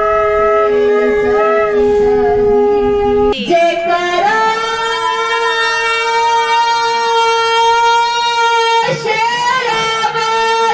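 Conch shells (shankh) blown in long, steady, held notes to begin a Hindu aarti. The notes break for a breath about three seconds in and again about nine seconds in, and the next blast starts with a bend in pitch.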